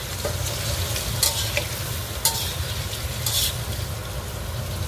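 Hot oil sizzling in a stainless steel frying pan as fried pork and potato pieces are stirred and scooped out, with utensils scraping the pan; three short, sharper bursts come about a second apart.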